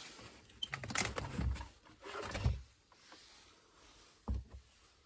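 Rummaging in an old wooden chest of drawers: paper rustling and small clicks and knocks as a wooden drawer is pulled open and its contents are handled, with a single low knock a little past four seconds in.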